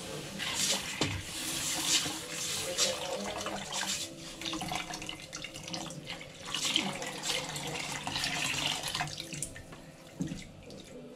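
Water poured from a plastic jug into a saucepan of flour browned in oil, splashing into the pan while a wooden spoon stirs the mixture. The pouring comes in several spells and eases off near the end.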